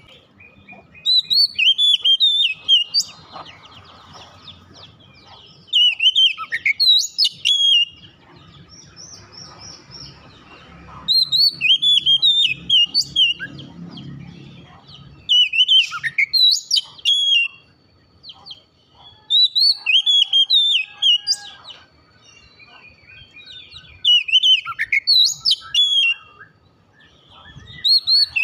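Oriental magpie-robin (kacer) singing: loud, varied whistled phrases of two to three seconds, repeated about every four to five seconds.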